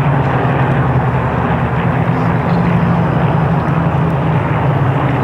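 A formation of Supermarine Spitfires flying past, their V12 piston engines blending into one steady, loud drone.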